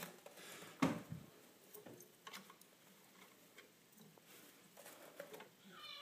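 Light scattered taps and clicks, with one louder knock about a second in, from a cockatiel moving about on a rotating witch toy.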